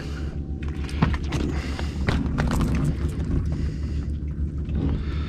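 Scattered knocks and clicks of a fish being handled on a boat, over a steady low rumble.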